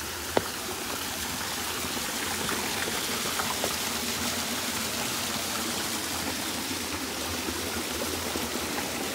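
Small rocky mountain stream running steadily over stones, with a sharp click about half a second in.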